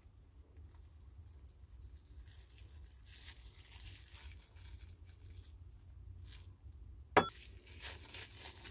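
Plastic cling film crinkling and tearing faintly as hands peel it and a soft white paste away from small rusty parts. Near the end comes one sharp clink as a part drops into a ceramic bowl.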